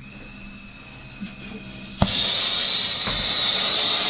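A handheld gas torch lit with a sharp click about halfway through, then its flame hissing loudly and steadily.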